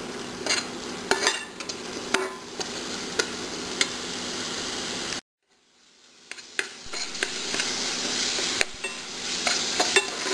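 Spiced tomato masala sizzling in a metal kadai while a metal spatula stirs it, scraping and clicking against the pan. The sound cuts out abruptly for about a second a little past halfway, then the sizzle fades back in louder, with more spatula clicks.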